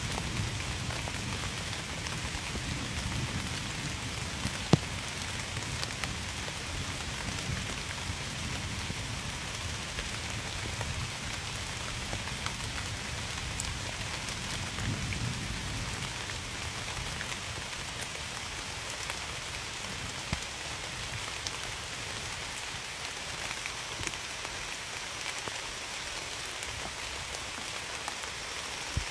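Steady rain falling, with sharp drop ticks here and there, one louder about five seconds in. A low rumble of distant thunder runs through the first half and swells again around the middle, then fades.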